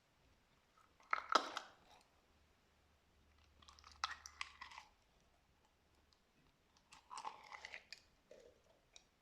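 Slime being squeezed and pressed, giving three bursts of close-packed crackling clicks, each about a second long, with a lone click near the end.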